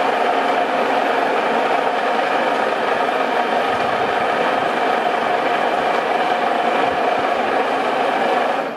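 Horizontal milling machine running with a steady loud hum and rattle, then dropping away at the very end as it is switched off at its push-button control panel.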